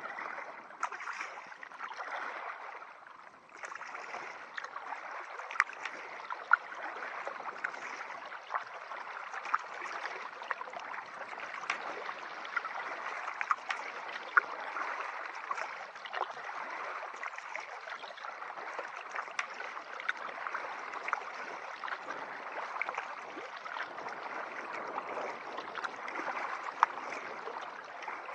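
Water splashing and gurgling around a kayak, with many small sharp splashes scattered throughout.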